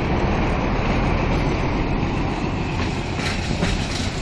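Krupp BB304-class diesel-hydraulic locomotive running past close by with a steady low engine rumble, its wheels clacking over rail joints from about three seconds in.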